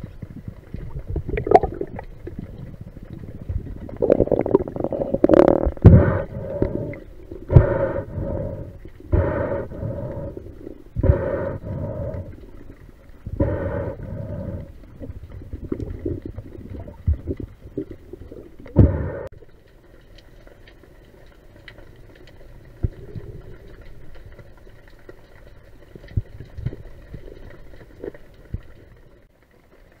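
A spearfisher breathing hard through a snorkel, muffled as if heard through the camera housing: a run of loud breaths, at first close together and then about every two seconds, with water noise. The breathing stops a little after halfway, leaving faint, steady water noise.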